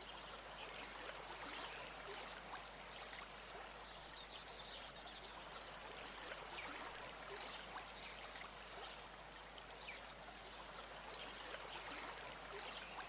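Faint steady hiss of background noise with scattered small crackles, and a thin high whistling tone lasting about three seconds near the middle.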